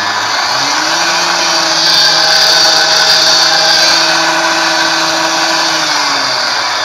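Washing-machine commutator motor driving a drill gearbox on a homemade drill press, running loudly. It is sped up through its speed controller about a second in, held at speed, then slowed back down near the end, its whine rising and falling with the speed.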